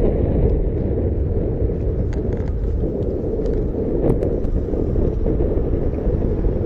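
Wind rumbling on a sock-covered microphone from the rush of air while riding an electric unicycle: a steady low rumble with a few faint ticks.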